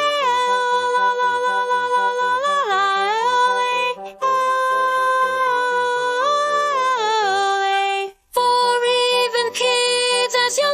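Children's song music: a sung "aaa… la la la" vocalise, long held notes sliding smoothly from pitch to pitch over soft, regularly repeating bass notes. It breaks off briefly a little after eight seconds.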